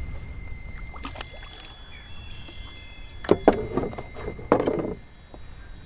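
Handling noises aboard a plastic Hobie Pro Angler 14 fishing kayak: a few light knocks about a second in, then two louder clattering bursts about three and four and a half seconds in, over a low wind rumble on the microphone.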